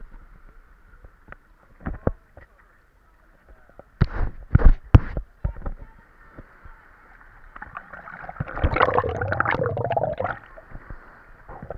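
Water sloshing and slapping against a waterproof camera housing bobbing at the sea's surface, with a few sharp knocks about four to five seconds in. Then a louder, muffled gurgling rush as the camera dips under the water, ending shortly before the close.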